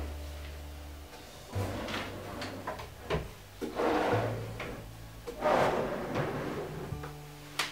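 Wooden drawers of a solid pine cupboard sliding open and shut, wood scraping on wood several times. One drawer closes with a sharp knock near the end.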